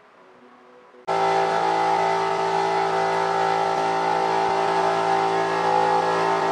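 Honda NSR50's two-stroke single-cylinder engine running, held at one steady engine speed. It cuts in suddenly about a second in.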